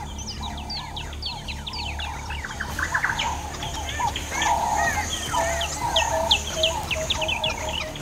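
Wild birds chirping: many quick, falling chirps, with a fast run of short clucking notes from about halfway on, over a steady high insect hum.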